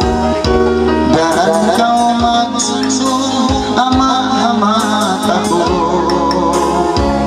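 A man singing a Tausug song into a microphone over instrumental accompaniment with bass and guitar.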